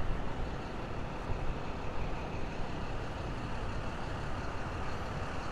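Street traffic: a steady, even rumble of motor vehicles with no single event standing out.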